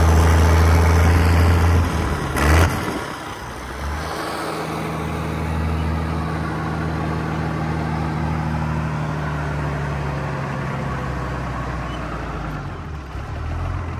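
Diesel engine of a rat truck running on burnt motor oil, pulling steadily down the road with wind and road noise. About two and a half seconds in there is a brief loud knock, and the engine then runs on more quietly.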